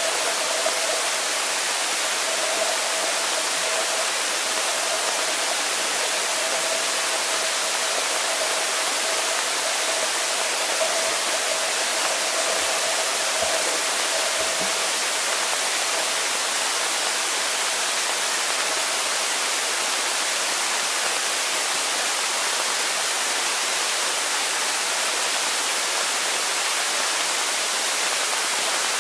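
Steady hiss of swimming-pool water heard through a camera's underwater housing. A faint steady hum runs under it for about the first half.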